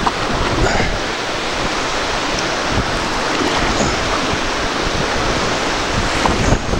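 Fast river water rushing through a rapid around a canoe, a steady even rush, with wind buffeting the microphone as a low rumble.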